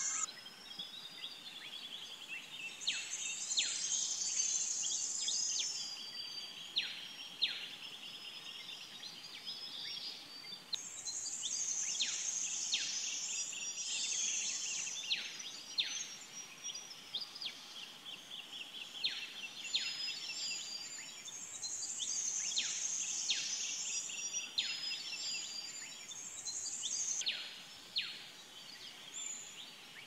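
Morning chorus of several songbirds: overlapping chirps and trills, cut through again and again by short, sharp whistles that sweep downward in pitch.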